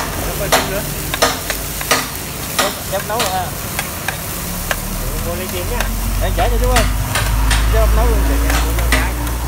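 Metal spatula scraping and knocking against a steel frying pan as corn kernels and spring onions are stir-fried, over a steady sizzle, with strokes about once or twice a second. A low rumble builds from about halfway.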